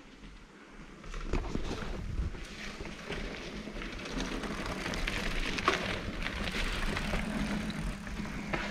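Mountain bike rolling down a rocky dirt trail: tyres crunching over stones and the bike rattling, starting about a second in and growing louder.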